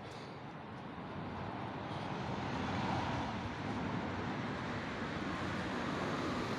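Engine noise with no clear pitch, swelling over the first three seconds and then holding steady.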